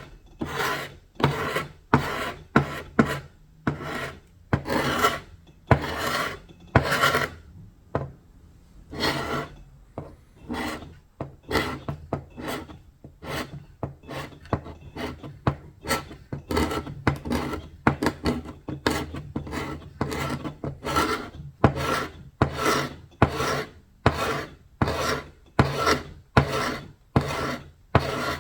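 Hand strokes abrading old paint and finish off wood, a rasping rub repeated about once a second. There is a brief pause about eight seconds in, then the strokes come quicker, about two a second.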